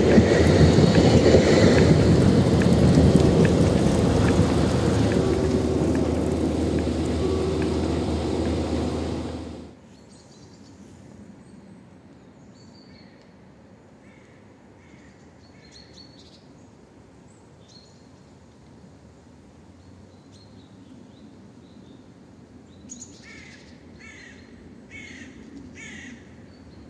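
A tram running along the track, its rail and running noise slowly fading, cuts off suddenly about ten seconds in. Quiet outdoor air with faint bird chirps follows, and near the end a bird calls about five times in quick succession.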